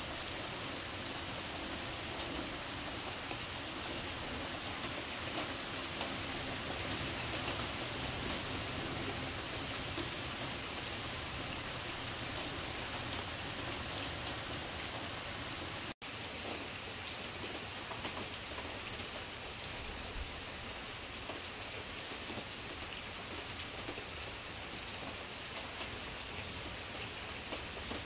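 Heavy rain heard from inside a small shelter: a steady hiss with many single drops ticking. The sound cuts out for an instant about halfway through.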